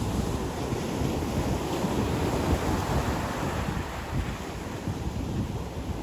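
Ocean surf washing onto the beach in a steady rush, with wind buffeting the microphone as a low rumble; the wash eases a little about two-thirds of the way through.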